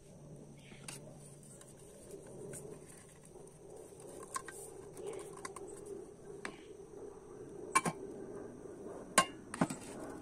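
Aluminium camping cookware being handled: the frying pan's folding wire handle clicking and the pan knocking against the other pots as it is set down. A few sharp metallic clinks, the loudest in the second half.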